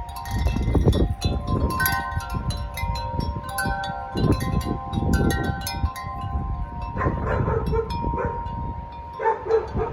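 Wind chimes struck over and over in a strong wind, many overlapping notes ringing on, with gusts rumbling on the microphone.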